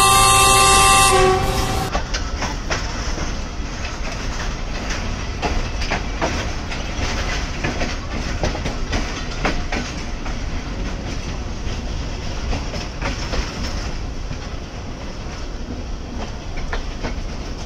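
A train horn sounds a long blast of several steady tones together, cutting off about a second and a half in. After it, the arriving Millat Express rolls through the station, its wheels clicking over the rail joints above a steady rumble.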